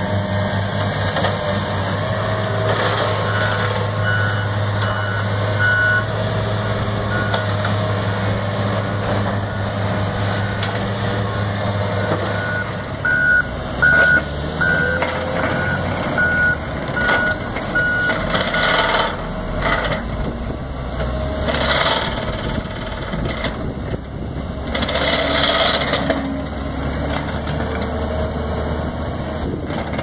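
Heavy diesel construction machines running, with a backup alarm beeping at an even pace from a few seconds in until just past the halfway mark. Later come a few louder stretches of noise as a wheel loader works the dirt.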